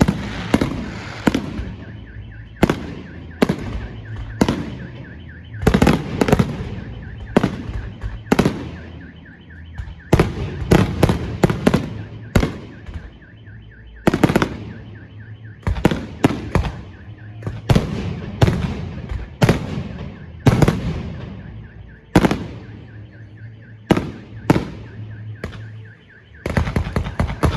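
Fireworks display: aerial shells bursting in quick succession, a sharp bang every second or two, each with a fading crackle and rumble.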